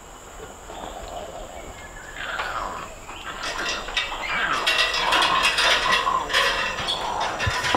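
Orangutan calling: harsh, noisy calls that grow steadily louder from about two seconds in and are loudest through the second half.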